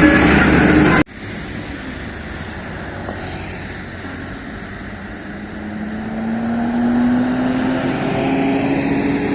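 A bus engine pulling away, its low drone rising slowly in pitch and getting louder over the last few seconds. It is preceded by a loud second of several held tones that cuts off abruptly.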